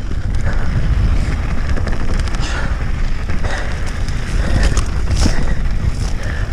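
Mountain bike riding fast down a dirt trail: wind rushing over the camera microphone and tyre noise on the dirt, with frequent irregular clacks and knocks from the bike rattling over bumps.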